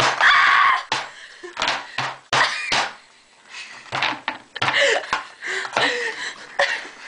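Food being hacked at on a board: a run of sharp knocks, some in quick pairs, mixed with girls' short shrieks and laughter.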